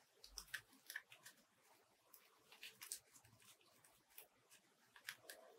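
Faint, scattered crackles and ticks of foam fruit netting being squeezed and shaped between the fingers.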